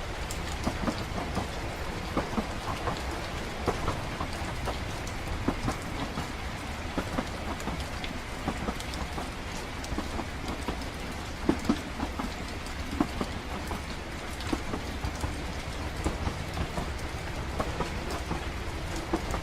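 Ambience mix of steady rain with scattered drops ticking, over the constant low rumble of a moving train.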